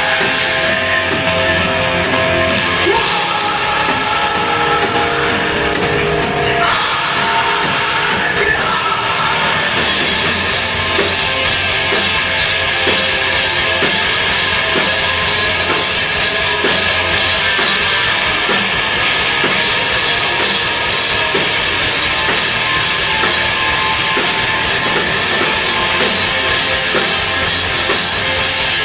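Loud, heavy rock music played by a full band with a drum kit and guitars, running continuously.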